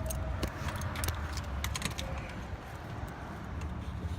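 Scattered light metallic clicks and clinks of hand tools at a pickup's heater hose connector, over a steady low rumble.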